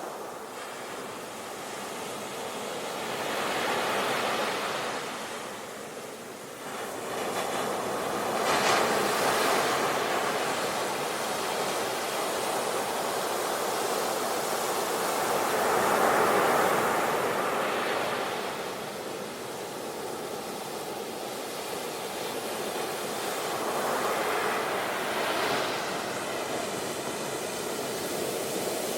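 Sea waves washing onto the shore, a steady surf hiss that swells as breakers come in about every few seconds.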